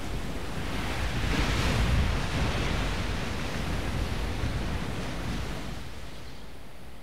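A rush of noise with no distinct tones. It swells to a peak about two seconds in, then slowly dies away by about six seconds, like a surge of wind or surf.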